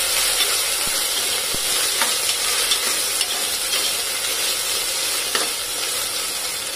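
Onions frying in oil and ghee in a metal pressure cooker, a steady sizzle, with a spatula stirring them and a few light scrapes against the pot. The ginger-garlic paste is being sautéed until its raw smell is gone.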